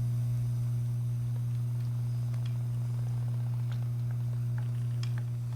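A steady low hum on one unchanging pitch, with a few faint scattered ticks over it.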